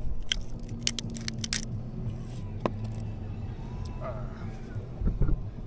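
Salt grinder being twisted over an opened chocolate clam: a quick run of crackling clicks in the first second and a half, then a single click a little later. A low thump about five seconds in is the loudest sound.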